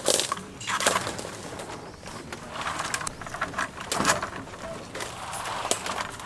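A dove cooing in the background, with a few short sharp knocks.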